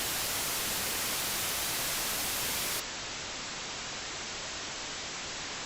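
Steady static hiss, louder and brighter for the first three seconds or so, then dropping suddenly to a softer, duller hiss.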